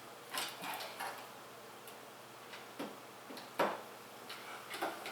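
Irregular light clicks and taps, about seven of them, from small computer parts being handled, in the middle of plugging the case's front-panel switch connectors onto the motherboard header; the loudest click comes a little past halfway.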